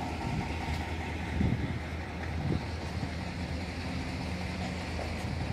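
Motor vehicle engine running, a steady low hum.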